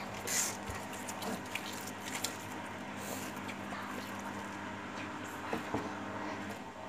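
Slime being squeezed and poked with the fingers, making many small squishy clicks and pops.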